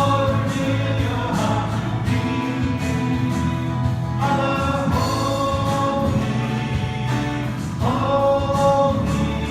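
Worship music: a group of voices singing a gospel-style church song together, in held phrases a few seconds long.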